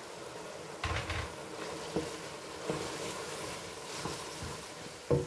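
Spaghetti being stirred into tomato sauce in a stainless steel pot with a wooden spoon: soft wet stirring with the spoon knocking against the pot about five times, starting about a second in, the last knock near the end.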